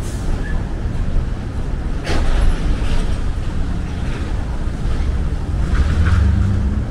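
City street traffic: a steady low rumble of cars driving past, with a vehicle's engine hum rising near the end.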